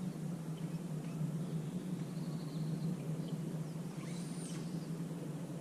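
A steady low hum with faint, short bird chirps scattered over it.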